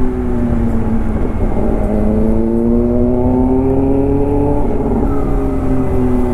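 Kawasaki ZX-10R's inline-four engine through an Arrow aftermarket exhaust, revving: its tone dips, climbs steadily for a few seconds, then falls away near the end, over the steady rumble of riding in traffic.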